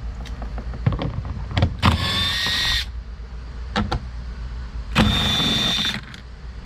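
A cordless power tool with a 10 mm socket running twice, about a second each, once near 2 s and again near 5 s, with a high whine as it spins out the two 10 mm bolts holding the door trim panel. There are a few light knocks between the runs.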